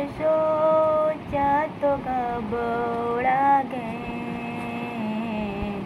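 A woman singing a slow Hindi song unaccompanied, drawing out long held notes that glide between pitches.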